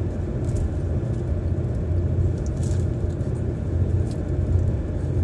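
Steady low road and engine rumble heard from inside a car's cabin while driving at freeway speed.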